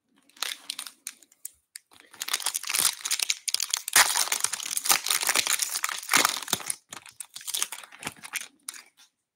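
The silver foil wrapper of a 2022 Bowman Draft baseball card pack being torn open and crinkled by hand. It makes dense crackling that comes in bursts and is loudest in the middle.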